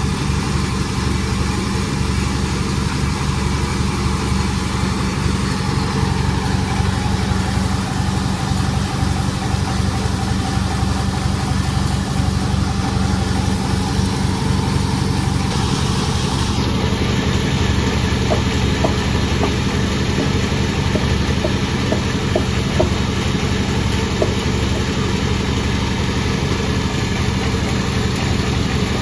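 Sawmill machine running steadily. About sixteen seconds in, a brighter, hissier noise joins the steady running.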